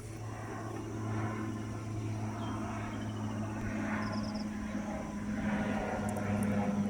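An aircraft's engines droning steadily and slowly growing louder as it approaches. A few faint, brief bird chirps sound over the drone.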